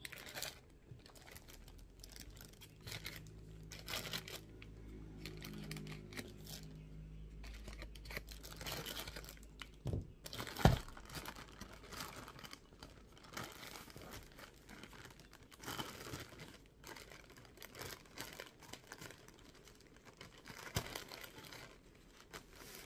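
Plastic mailer bag being torn open and crinkled by hand: irregular rustling and crackling, with a low hum under it for a few seconds in the first half and one sharp knock about eleven seconds in.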